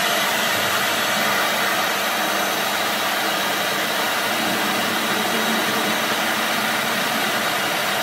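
Handheld hair dryer running steadily, blowing air through a plastic bag held over an inflatable toy to inflate it.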